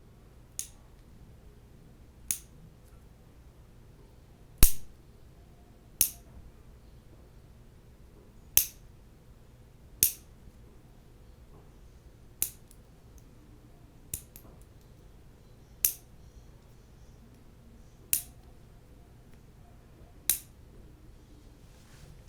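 Nail clippers clipping nails: eleven sharp, separate clips about every two seconds, the loudest about four and a half seconds in. A faint low hum runs underneath.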